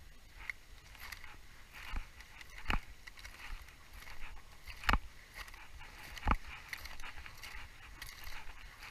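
Crunching and scraping on glacier ice as someone moves over it, with four louder sharp knocks spread through.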